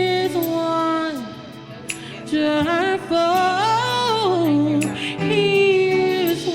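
Worship song: a voice sings long held notes, climbing and then falling back in a run about midway, over a steady low instrumental backing.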